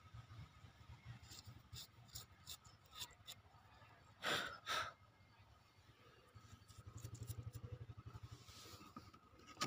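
Faint gritty scratching and rustling as hands dig a small clay pot out of a bucket of dark granular material, with two short breathy bursts about four and a half seconds in and a faint low pulsing buzz in the second half.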